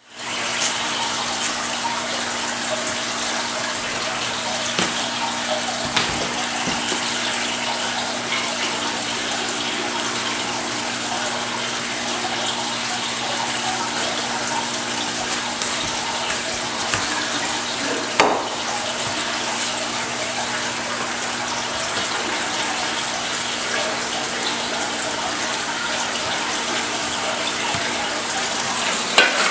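Aquarium filter running: a steady rush of circulating water with a low, even pump hum underneath. One brief knock sounds about two-thirds of the way through.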